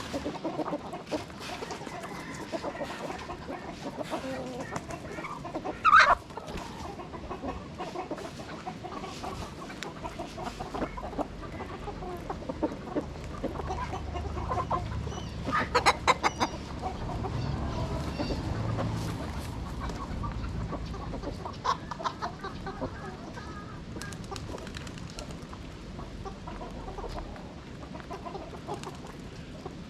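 A flock of chickens clucking steadily, with a loud squawk about six seconds in and a quick run of loud calls around the middle.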